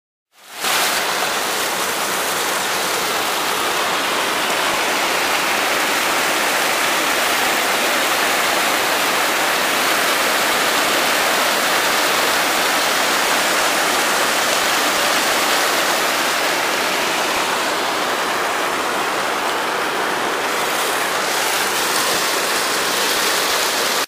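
River water pouring over the lip of a concrete crossing and churning into whitewater below: a loud, steady rush that starts abruptly about half a second in.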